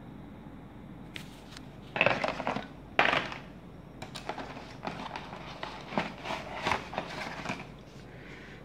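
Handling noise of an electric shaver being lifted out of its moulded plastic box tray: two louder scrapes about two and three seconds in, then a run of small clicks and crackles.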